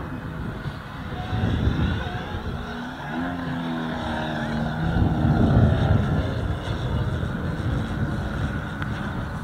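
Radio-controlled model jet aircraft flying past overhead. Its engine sound swells to its loudest about five to six seconds in, then eases off.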